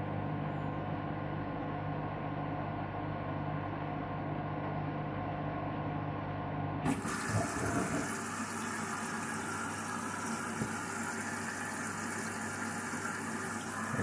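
Front-loading washing machine draining a foam-filled drum: a steady hum with water sloshing, which about seven seconds in turns suddenly into a brighter, even rush of water.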